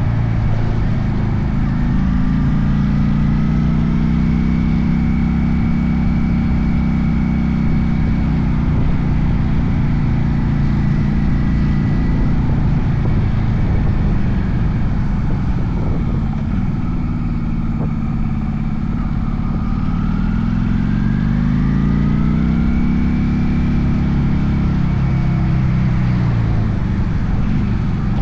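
1996 Honda VLX 400 (Steed 400) V-twin engine running under way. The engine note holds steady, drops about halfway through as the bike slows, then climbs again a few seconds later as it accelerates.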